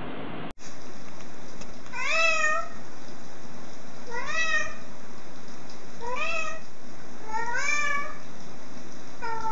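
Black-and-white tuxedo cat meowing: four drawn-out meows about two seconds apart, each rising in pitch and then levelling off, with a fifth starting at the very end.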